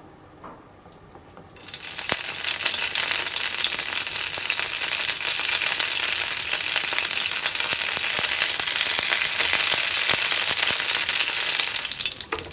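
Fresh curry leaves dropped into hot coconut oil, sizzling hard. The sizzle starts suddenly about a second and a half in and holds steady.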